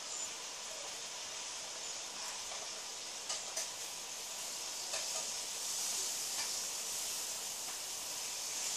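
Pen writing on a notebook page: a soft, steady scratching with a few faint taps.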